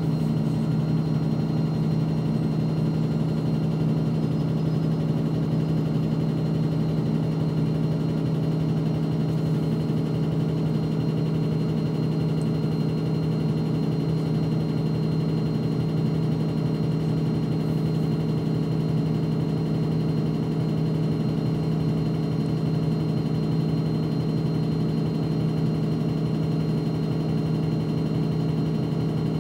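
NefAZ-5299 city bus's engine idling while the bus stands still, heard from inside the passenger cabin: a steady low hum with a constant pitch.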